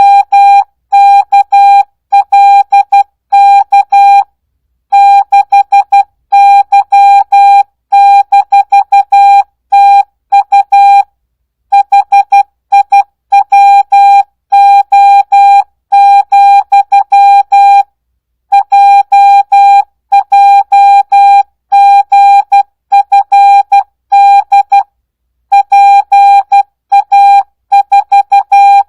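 Morse code practice tone sent at 12 words per minute with full-speed character spacing (no Farnsworth): a single steady-pitched beep keyed on and off in dots and dashes, with a short silence between each word about every six or seven seconds.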